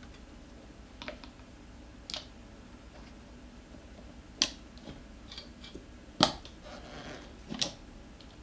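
Metal tire spoons clicking and knocking against the scooter's wheel rim while prying a tight tire bead. About five sharp clicks at uneven gaps, the loudest about six seconds in.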